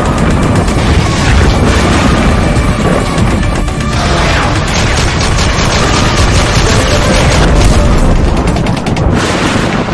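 Loud intro soundtrack: music mixed with booms and bursts of rapid gunfire sound effects.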